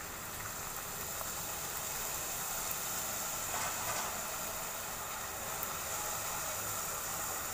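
Hot oil sizzling steadily as a pakwan, a thin disc of wheat-flour and semolina dough, deep-fries in a steel pot.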